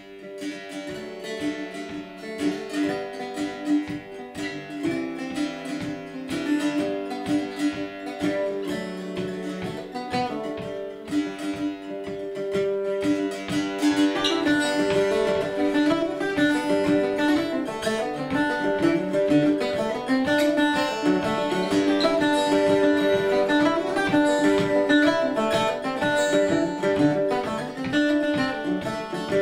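Solo long-necked plucked string instrument playing an Irish jig, a quick picked melody that grows louder and fuller about halfway through.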